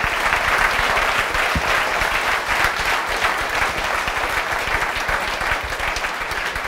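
Audience applauding: many hands clapping together, steady and full, easing off slightly near the end.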